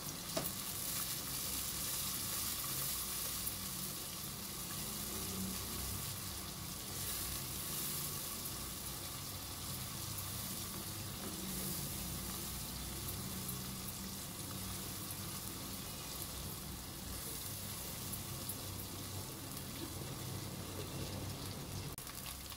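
Sliced onions and ginger-garlic paste sizzling steadily in hot oil in a nonstick pot while a spoon stirs them. The onions are frying from light pink toward brown.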